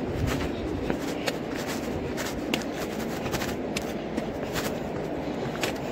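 Footsteps on a stony mountain trail, sharp irregular crunches about three a second, over a steady rushing noise.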